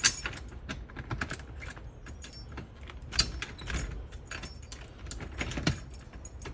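Irregular clinking and rattling, like keys jangling, spread through the whole stretch over a steady low rumble of wind on the microphone.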